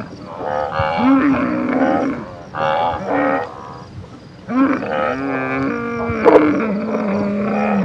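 Alpacas humming: a series of long, wavering, pitched calls, several overlapping, with short gaps between them.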